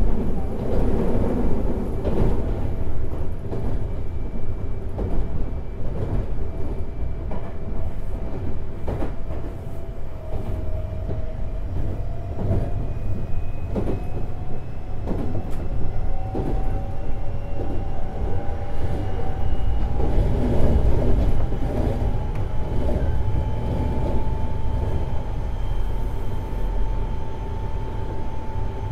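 Semboku 7020 series electric train running, heard from above a motor car's bogie: the Hitachi two-level IGBT inverter and traction motor whine slowly rises in pitch as the train gathers speed, over a steady wheel-and-track rumble with short clicks from the rails.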